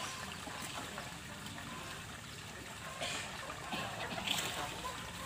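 Open-air crowd ambience: a low hubbub of distant voices from many people, with two short hissing sounds, about three and four seconds in.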